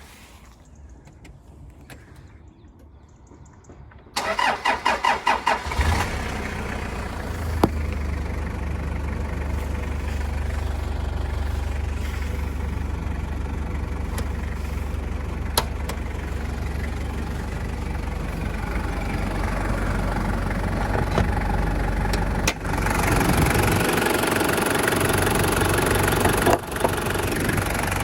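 Toyota 3.0-litre turbo diesel engine (1KZ-T) of a HiLux Surf being started: the starter cranks for about a second and a half, then the engine catches and settles into a steady idle, sounding louder and brighter near the end.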